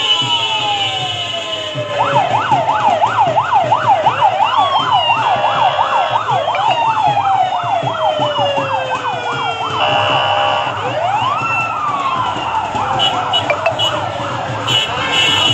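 Several police and emergency-vehicle sirens sounding together, overlapping and out of step. Slow falling wails run under a fast yelp that starts about two seconds in and lasts several seconds. A fresh wail rises and slowly falls again near the end.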